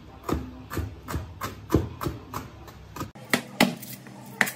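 Chef's knife chopping on a plastic cutting board, slicing a green chili in a steady run of knocks about three a second. About three seconds in the chopping stops and a few louder, separate knocks of the blade on the board follow.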